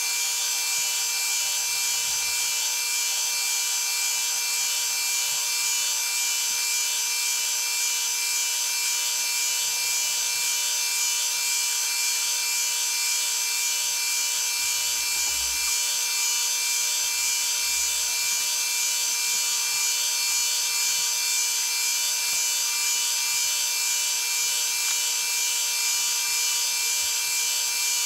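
Milling machine running steadily with a constant whine, its cutter machining a wooden block.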